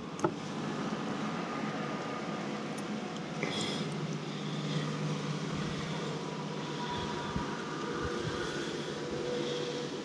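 A steady low mechanical hum with a few faint steady tones, and two sharp clicks right at the start.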